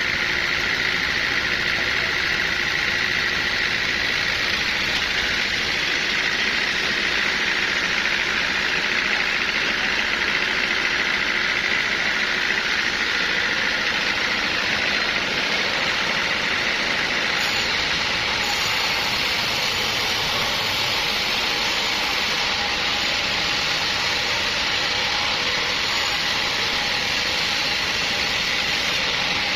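Engine-driven sawmill machinery running steadily: a constant mechanical noise with a high, even whine through it.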